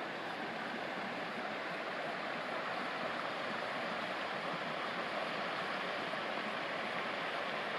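Small creek running steadily, an even rush of water with no other events.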